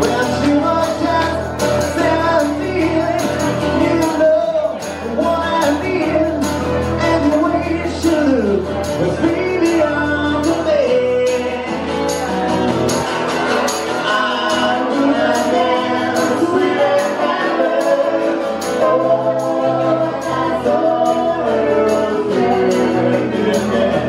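Live acoustic band music: voices singing a melody over acoustic guitar, with a steady hand-percussion beat.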